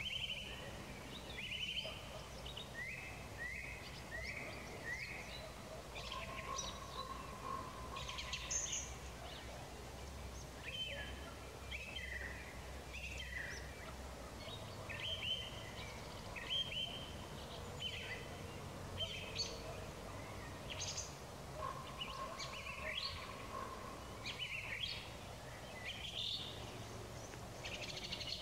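Evening birdsong: several songbirds singing short, repeated whistled phrases one after another, over a faint steady background hum.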